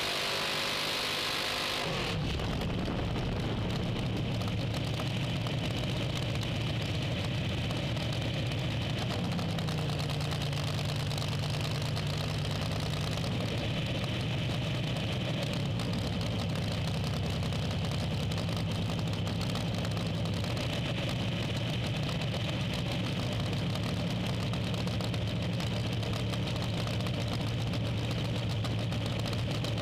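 A hiss for the first two seconds, then a drag racing car's engine idling steadily, its pitch shifting slightly a couple of times.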